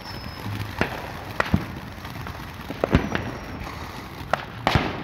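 Fireworks going off: several sharp bangs at irregular intervals, the loudest about three seconds in and another strong one near the end.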